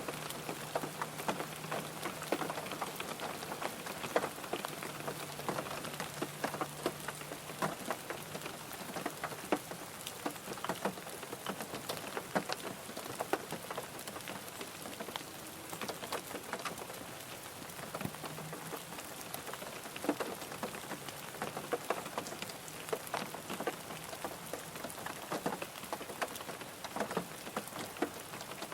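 Steady rain drumming on a car's roof and windows, heard from inside the cabin, with many individual drops ticking sharply over a constant wash.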